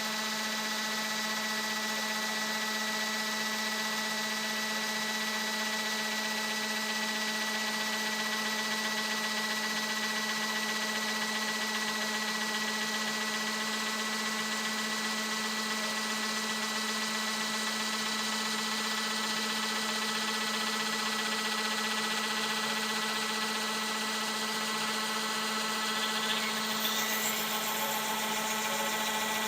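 Electric orbital sander running at high speed on a piece of wood, its motor giving a steady, even hum as it is moved slowly across the surface.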